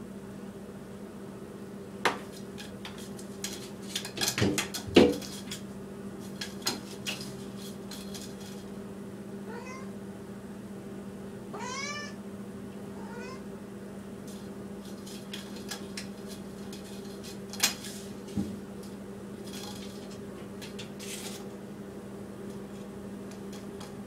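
A cat in a bathtub giving a few short meows that rise and fall in pitch near the middle, among sharp clicks and knocks as it bats a plastic straw around the tub, the loudest knocks about five seconds in. A steady low hum runs underneath.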